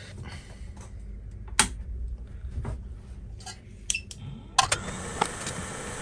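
Several sharp clicks and knocks of tools being handled on the bench, then near the end a steady blowing hiss starts and holds: a hot air rework station switched on to remove a burnt chip from the logic board.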